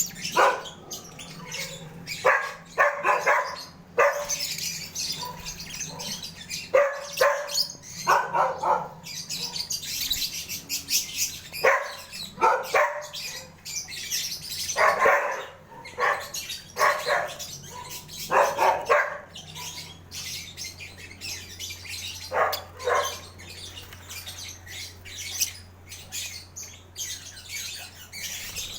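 Lovebirds chattering with high chirps throughout, over a dog barking in short bursts every second or two.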